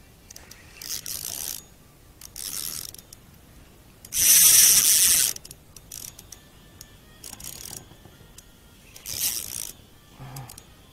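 Spinning fishing reel buzzing with a ratchet-like whirr in several short bursts, the longest and loudest about four seconds in.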